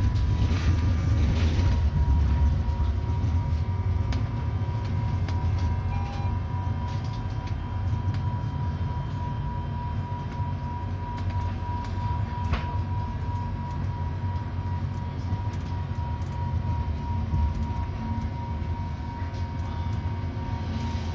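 Stadler Citylink Class 399 tram-train running along mainline track, heard from its driver's cab: a steady low rumble of wheels on rail with a steady high whine, and a few sharp clicks.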